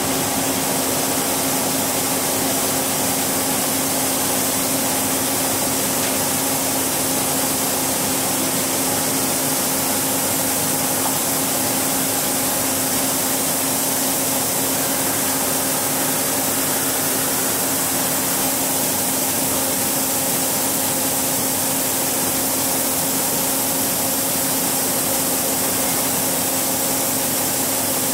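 Niigata HN-80C CNC horizontal machining center powered up and running: a steady mechanical hum with one constant tone under an even hiss, unchanging throughout.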